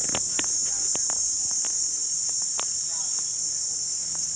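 Steady high-pitched chorus of forest insects, an unbroken shrill drone, with a few faint clicks scattered through it.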